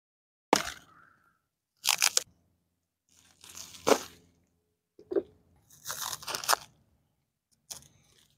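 Plastic wrapping around a plant's root ball crinkling and crackling in about six short bursts as it is handled and cut open with a knife.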